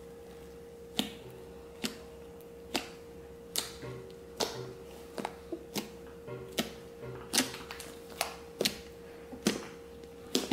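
Fingers poking and pressing a soft slime, squeezing out air pockets in sharp pops and clicks about once a second, over a faint steady tone.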